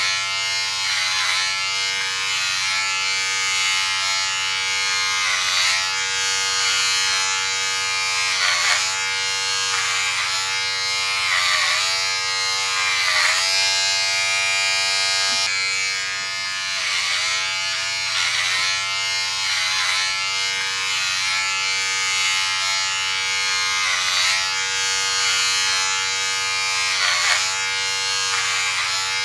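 Electric hair clipper buzzing steadily, its pitch briefly dipping and recovering every couple of seconds.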